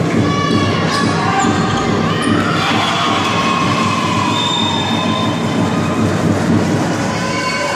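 Spectators in a sports hall cheering and shouting, with long high-pitched cries, some falling in pitch, over a steady din.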